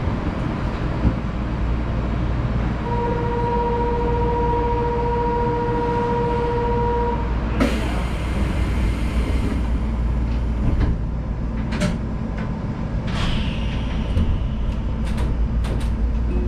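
Mitsubishi 1000 Series suspended monorail car standing at the platform with a steady low equipment hum. A steady buzzer tone sounds for about four seconds, then a hiss of air for about two seconds, then a run of sharp clicks and knocks as the doors close before departure.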